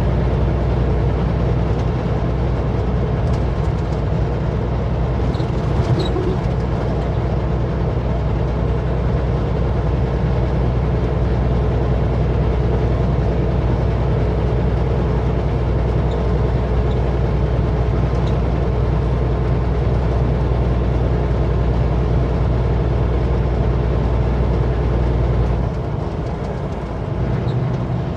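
Kenworth W900L semi truck's diesel engine pulling steadily under way, heard from inside the cab with road noise. About three-quarters of the way through, the deep engine note drops away as the throttle is let off.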